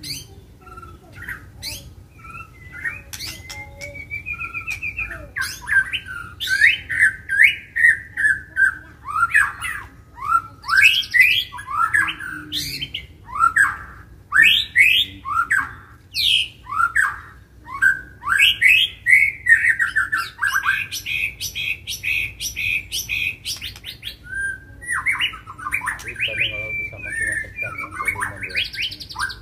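White-rumped shama (murai batu) singing, the aggressive, fired-up song that keepers call gacor. A few sharp calls open, then a continuous, rapid run of varied whistles, fast trills and harsh repeated notes follows, with a brief pause near the end.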